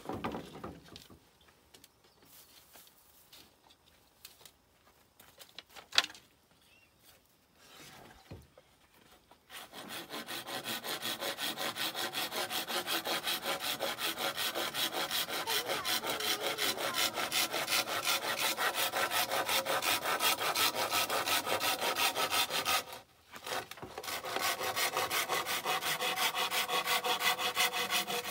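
Hand saw cutting through a green bamboo pole with quick, even back-and-forth strokes. The sawing starts about a third of the way in, stops briefly near the end, then picks up again. Before it there is a single sharp knock.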